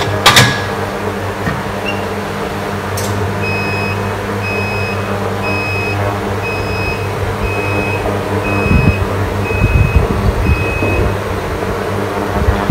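Electric cooktop beeping: a short high-pitched beep about once a second for several seconds, over a steady low hum. A click comes just after the start, and there are a few dull low bumps near the end.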